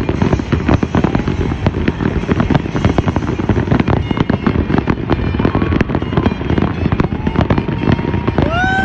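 Fireworks display going off in a dense, unbroken barrage of rapid crackling pops and bangs.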